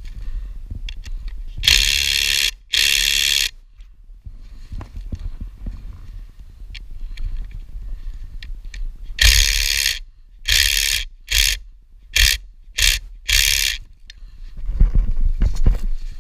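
Cordless power driver with a socket on a mini-trike wheel's axle nut, running in bursts. There are two runs of about a second near the start, then six shorter bursts in quick succession in the middle.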